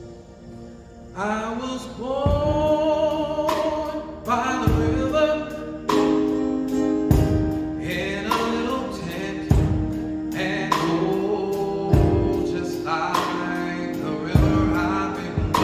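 Solo male gospel singing with a live band: the man comes in about a second in with long held notes that waver in pitch, over sustained Yamaha keyboard chords and slow drum-kit hits, kick and cymbal together, roughly every two and a half seconds.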